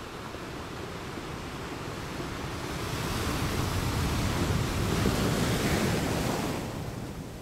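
Ocean waves: a surge of surf that builds steadily, is loudest about five seconds in, then falls away.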